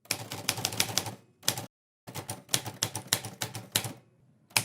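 Rapid clicking and tapping, like keys being struck, in several bursts that cut off abruptly into silence.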